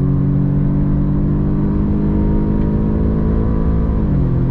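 Audi S3's 2.0-litre turbocharged four-cylinder engine pulling hard at full throttle, its revs climbing slowly. About four seconds in, the pitch drops sharply as the gearbox shifts up a gear.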